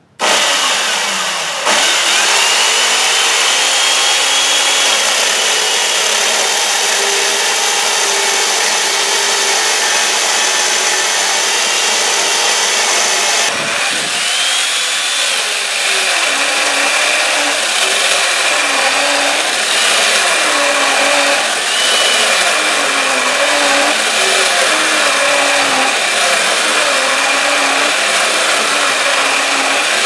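Vintage Milwaukee 2-horsepower electric chainsaw with a 36-inch bar and rip chain, rip-cutting a holly log lengthwise under load. The motor whine and chain cutting noise are loud and steady, and in the second half the motor's pitch repeatedly sags and recovers as the cut loads it.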